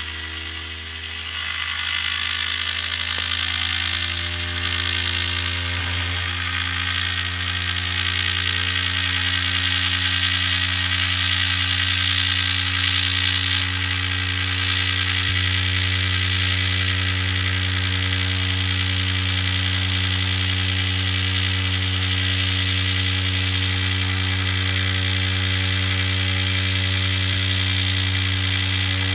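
Homemade transistor pulse motor running at speed, its disc rotor spinning up to about 5,700 rpm. It makes a steady buzzing hum with a hissing whir above it, which grows louder over the first ten seconds or so and then holds steady.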